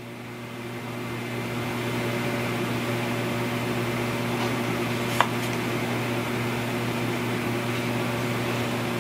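Steady electrical hum with a whirring noise beneath it. A single small click comes about five seconds in.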